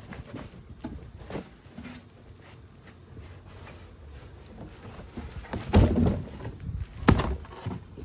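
Packaging of a boxed subwoofer being opened and handled: soft rustles and scattered knocks, with louder thumps about six and seven seconds in.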